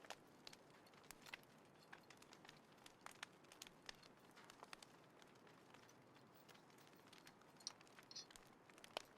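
Small wood fire crackling quietly: irregular sharp pops and snaps over a faint hiss, the loudest pop near the end.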